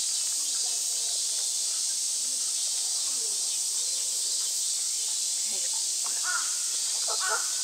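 A crow cawing twice near the end, about a second apart, over a steady high hiss.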